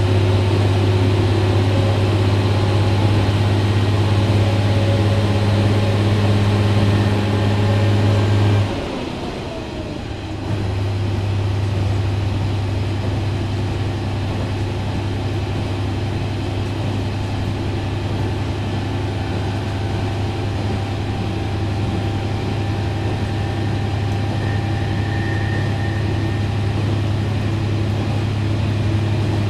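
JR Shikoku 1000 series diesel railcar running, its engine giving a steady low hum. About nine seconds in, the engine note drops away with a falling whine, and after about two seconds it picks up again and runs steadily.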